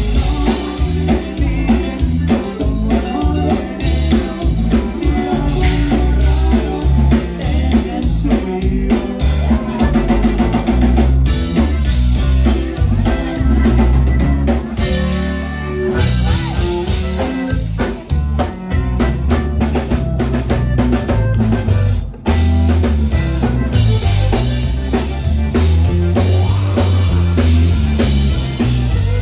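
Live conjunto band playing a dance number: button accordion with bass guitar and a drum kit keeping a steady beat, with two brief drops in the music in the second half.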